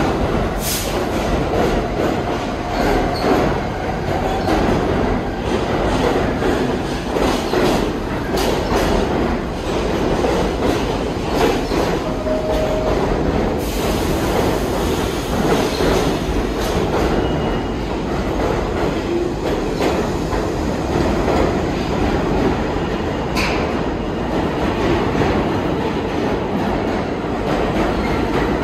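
New York City subway train running on steel rails: a steady loud rumble with frequent wheel clicks over rail joints and a few brief flange squeals.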